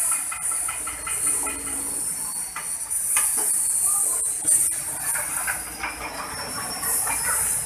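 Stainless-steel coconut milk press machine running on its electric motor as grated coconut is fed into its hopper: a steady high hiss with scattered knocks and rattles.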